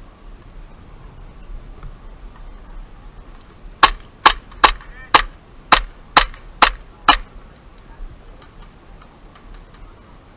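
Airsoft gun fired in quick semi-automatic succession: eight sharp, loud shots a little under half a second apart, starting about four seconds in.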